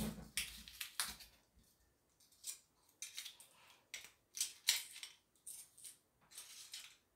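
A run of short scratchy crinkles and light metallic clinks: the seal is stripped from a whisky bottle's neck, then a metal corkscrew is picked up and handled on a wooden tabletop.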